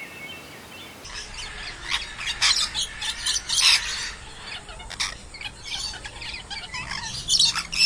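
A flock of birds chirping and squawking all together, the calls thick and overlapping, starting abruptly about a second in.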